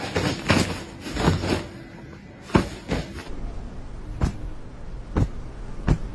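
A rustling clatter in the first second and a half, followed by about five sharp, separate knocks at uneven intervals.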